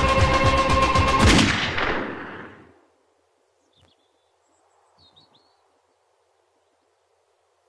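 Trailer soundtrack music with rapid percussive strokes builds to a final hit about a second in and fades out by about three seconds. After it comes near silence with two faint brief blips.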